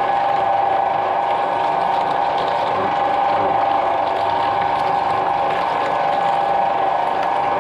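Shredder machine running steadily with a constant mechanical whine, as papayas sit in its hopper waiting to be drawn into the cutters.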